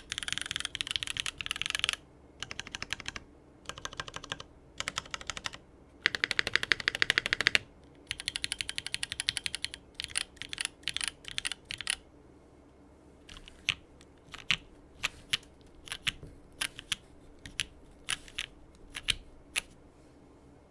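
Custom mechanical keyboard with lubed Cherry MX Black Hyperglide linear switches on an aluminium plate, under GMK keycaps, being typed on: a quick run of keystrokes, then the stabilized long keys pressed in short bursts, then rapid strokes on a few keys. In the last seven seconds single keystrokes come about twice a second.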